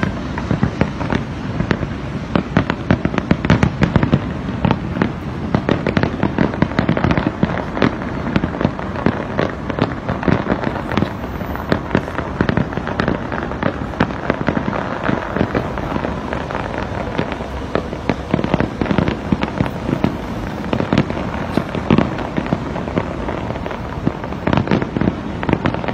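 Fireworks display: aerial shells bursting in a dense, continuous barrage of bangs and crackles.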